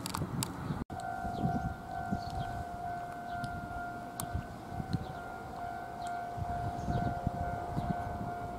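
A siren-like warning tone holding one steady pitch, with a fainter higher overtone, coming in after a brief dropout about a second in. Wind rumbles on the microphone beneath it.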